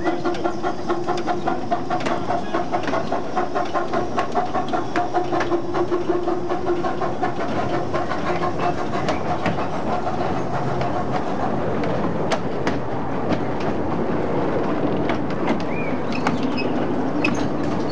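A 10.25-inch gauge 2-4-2T steam tank locomotive pulling away, its exhaust beating in a regular rhythm of about two to three beats a second over a steady tone. From about halfway the beats give way to its open carriages rolling past with scattered wheel clicks.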